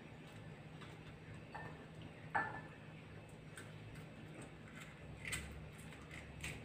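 Faint small clicks and crackles of eggshell being picked and peeled off a hard-boiled egg by fingers, with a louder click about two and a half seconds in and another a little after five seconds.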